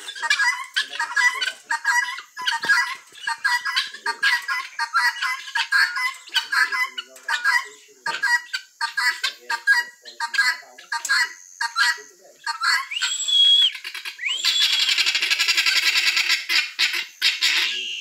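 A flock of helmeted guineafowl calling in a rapid run of short, harsh cackles, several a second. In the last few seconds a higher, drawn-out sound with a steady pitch cuts in, followed by a dense buzzing stretch of about three seconds.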